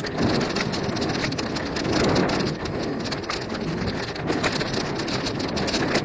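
Mountain bike riding fast along a dirt forest trail: a continuous rough, crackling rumble of tyres on dirt and leaf litter, with many small rattles and knocks from the bike over bumps.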